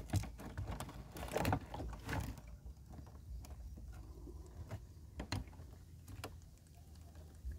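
Wire-mesh crab trap rattling and scraping as gloved hands work a crab out of it. Irregular light clicks and knocks, busiest in the first couple of seconds.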